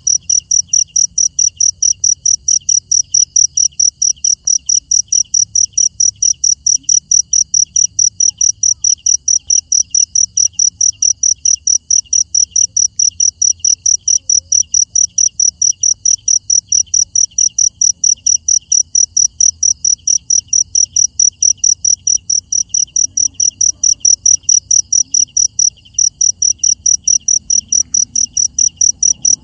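Cricket chirping at night: a loud, high-pitched, very regular chirp repeated several times a second, pausing only briefly near the end. A second, fainter insect chirps at a lower pitch.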